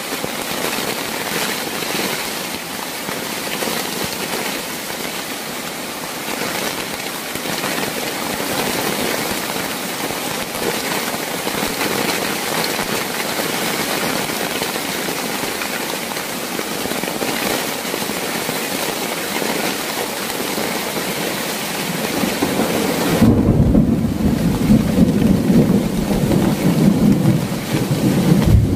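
Heavy rain falling steadily as an even hiss. About three-quarters of the way through, a loud, deep rumble of thunder takes over and the hiss of the rain fades back.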